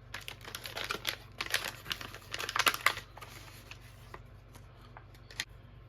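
MRE tortilla pouch being torn open and handled: a run of plastic crinkling and crackling for about three seconds, loudest just before it dies down, then mostly quiet with one more click near the end.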